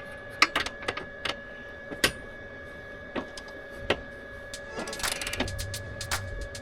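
Scattered sharp metallic clicks and clinks of hand tools on hitch bolts, with a quicker run of clicks about five seconds in.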